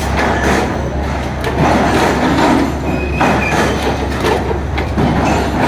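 Stainless steel tube running through a ring bending machine's rollers as it is coiled into rings: a steady low machine hum with irregular metallic rattling and clicking, and a brief high squeal about three seconds in.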